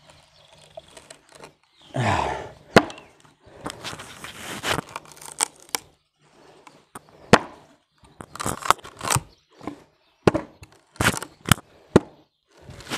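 Wooden board cracking and splintering as the point of a 6 mm thick Sleipner-steel Dobleoknives Ronin knife is driven and levered into it, with sharp cracks and rasping scrapes of blade on wood at irregular intervals.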